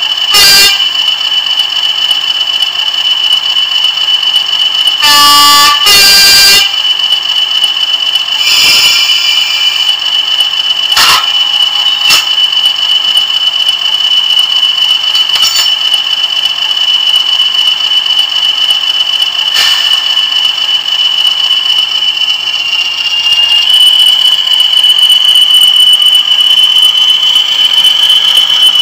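Sound decoder in a Bachmann Class 20 model diesel locomotive playing its engine sound through the model's small speaker: a steady high whine with the engine running, two horn blasts about five and six seconds in, and a handful of short sharp effects along the way. About 23 seconds in the engine note steps up slightly.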